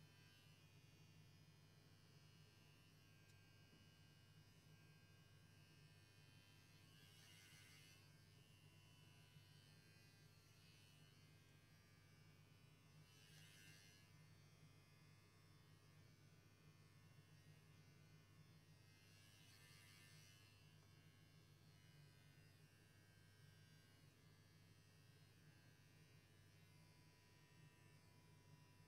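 Faint steady buzz of an electric pet hair clipper running during a cat's haircut, with three brief soft hissy sounds about six seconds apart.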